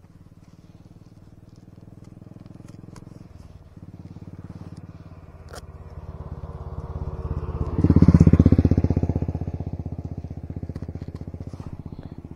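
A motorcycle engine running at idle with a fast, even beat, growing louder to a peak about eight seconds in, then settling back down.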